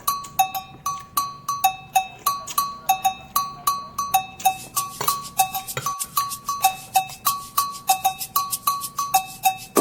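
Background music: a quick, repeating two-note pattern of struck, bell-like percussion notes, about three to four notes a second.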